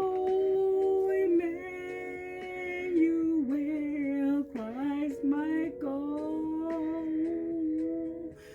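A voice singing a slow, wordless melody, holding long notes and sliding between them, over steady held background tones.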